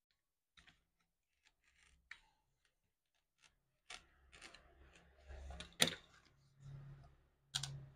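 Cardboard being cut with a craft knife and handled: a few faint clicks, then from about halfway scraping and rustling with sharp clicks, the loudest about six seconds in.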